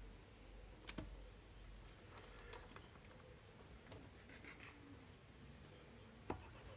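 Near silence with faint small handling sounds of tools on the engine, and a sharp click about a second in and another near the end.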